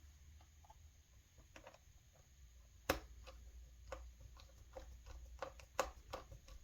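Small screwdriver driving the retaining screw into an M.2 SSD slot: faint, irregular clicks and ticks of metal on metal, with one sharper click about three seconds in and a quick run of clicks near the end.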